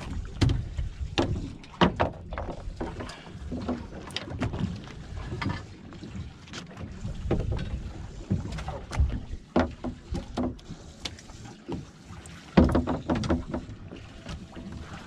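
Boat at sea: a steady low rumble with wind on the microphone, broken by scattered short knocks and taps.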